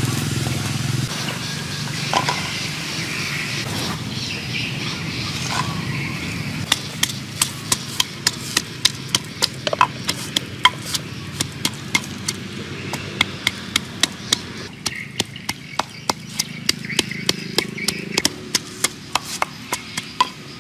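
Wooden pestle pounding chilies and garlic in a wooden mortar: a steady run of sharp knocks, about two a second, beginning about a third of the way in.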